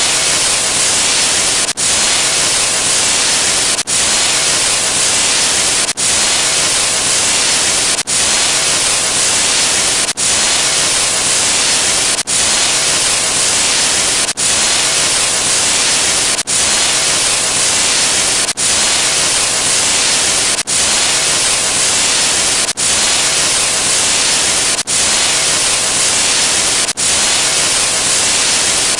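Loud static hiss like white noise, strongest in the highs, with a brief dropout about every two seconds where the sound effect repeats.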